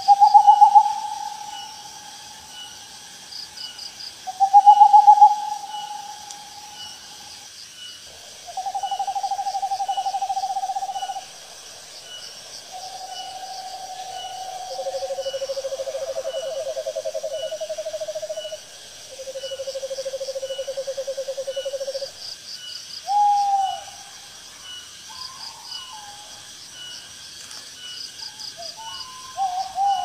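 Owls calling in long, even trills, each held two to three seconds at a different pitch, two overlapping at times, with shorter rising calls near the start and again near the end. A steady chorus of night insects chirps rhythmically behind them.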